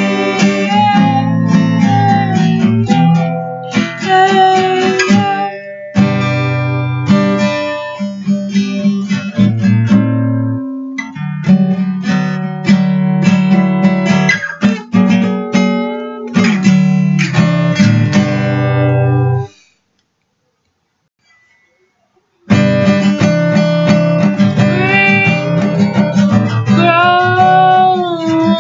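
Acoustic guitar strummed steadily in a chord pattern. It breaks off into silence for about three seconds roughly two-thirds of the way through, then resumes, with a woman's voice singing over it near the end.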